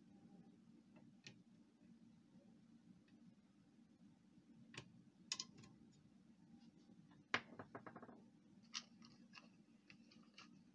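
Scattered light clicks and taps of hands and a tool on the plastic parts of a Pantum P2516 laser printer's fuser unit during disassembly, with a short rattling run of clicks about seven seconds in, over a faint steady low hum.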